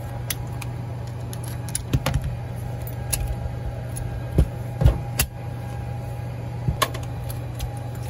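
Scattered metal clicks and knocks, a few louder ones around the middle, as an old Rochester Quadrajet carburetor is taken apart by hand and its top section is lifted off the body, over a steady low hum.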